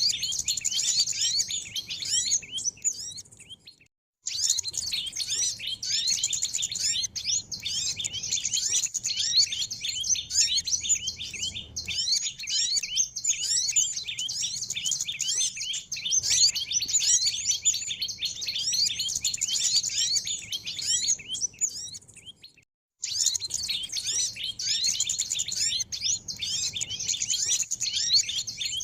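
Bird-lure recording of many small birds chirping and twittering together, a dense high-pitched chorus of quick overlapping chirps. It fades and drops out briefly twice, about four seconds in and again about 23 seconds in, then resumes.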